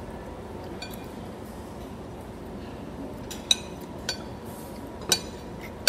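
Metal spoon clinking against dishes while eating: about five sharp clinks spaced roughly a second apart, some with a brief ringing.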